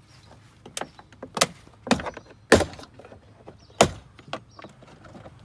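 Plastic retaining clips of a Ford F-150 front door trim panel snapping loose as the panel is pried off. There is a series of sharp snaps, about five loud ones, roughly half a second to a second apart.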